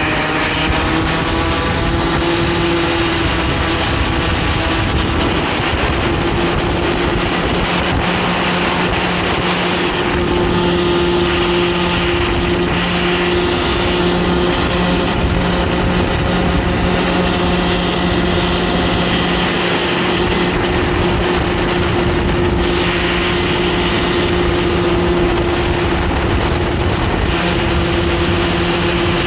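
Onboard sound of a Comer 50cc two-stroke kart engine running at speed, holding a nearly steady high note with slight dips in pitch.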